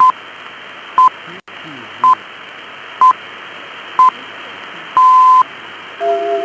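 Six electronic beeps at one steady pitch over a steady radio-like hiss: five short beeps about a second apart, then a sixth held for about half a second, in the pattern of the Greenwich time-signal pips. They are the tones of a made-up Emergency Alert System alarm.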